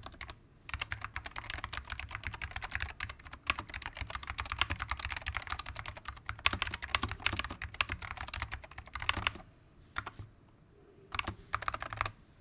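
Typing on a custom 60% keyboard with dry-lubed Alps SKCM Salmon switches in a plastic case: fast, continuous key clicks for most of the time, then a pause and a couple of short bursts of keystrokes near the end.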